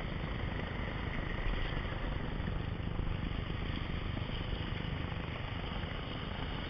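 Ocean surf and whitewater rushing around sea rocks: a steady rushing wash with a strong low rumble, heard close to the water's surface.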